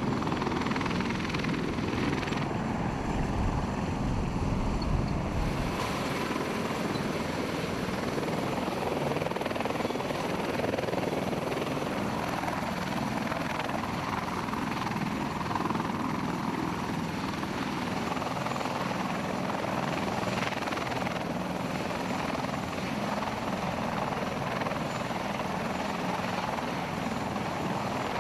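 CH-53 heavy-lift helicopter running on the ground with its rotors turning, a steady dense noise; the deep low rumble thins out about six seconds in.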